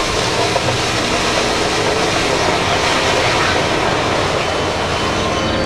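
Giant mining haul truck tipping its raised bed, a load of coal and rock sliding out in a steady rush over the diesel engine's running.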